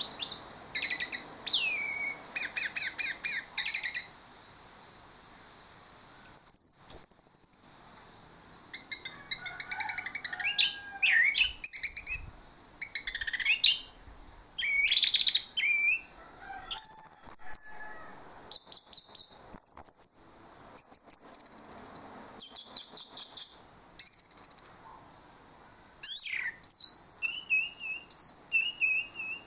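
Orange-headed thrush singing a long, varied song of loud, high phrases separated by short pauses, some of them runs of rapidly repeated notes.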